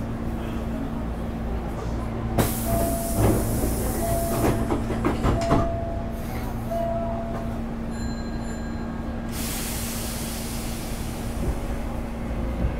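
Hankyu 8300 series electric train (later-batch Toyo GTO-VVVF cars) running, heard from inside the passenger car: a run of wheel clatter over rail joints and points a couple of seconds in, over a steady hum from the car's running air conditioning, with two spells of hiss and a rising motor whine near the end.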